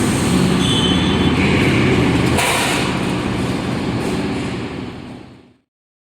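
Cable tray roll forming line running: a steady, loud mechanical noise with a low hum, which fades out near the end.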